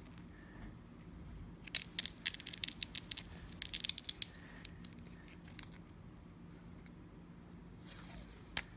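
A 3M adhesive mounting strip being peeled apart by hand: a quick run of sharp crackling, tearing clicks lasting about two seconds, then quieter handling with a short hiss and a single click near the end.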